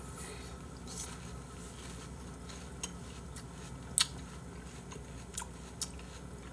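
Quiet chewing and crunching of watermelon cubes, with a few short, sharp clicks of a fork against a plastic food container, the sharpest about four seconds in.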